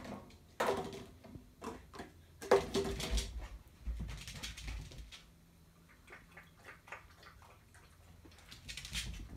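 Pembroke Welsh corgi puppy giving a few sharp, short barks in the first four seconds, the loudest about two and a half seconds in, followed by quieter small clicks and rustles.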